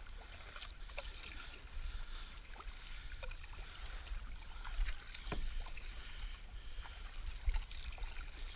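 A small boat being paddled: paddle strokes in the water with small splashes and drips, over a steady low rumble.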